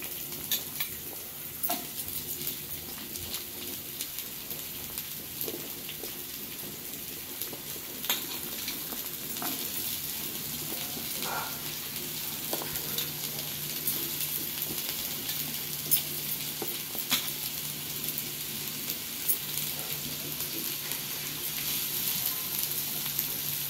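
Freshly added chopped onions sizzling in a little oil in a nonstick frying pan, a steady hiss with scattered small pops and crackles.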